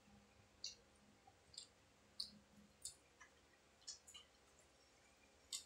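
A person chewing with the mouth near the microphone: about seven faint, sharp wet mouth clicks and smacks, irregularly spaced, over near silence. The food, a dynamite chili spring roll, has gone soft, so there is no crunch.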